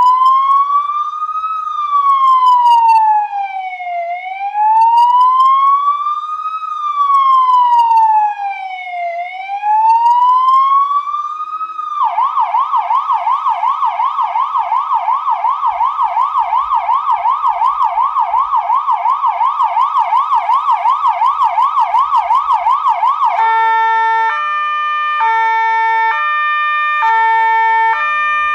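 Electronic emergency-vehicle siren changing mode twice. It opens with a slow wail rising and falling about every five seconds. About twelve seconds in it switches to a fast yelp warbling about four times a second, and about 23 seconds in to a two-tone hi-lo alternating between two pitches.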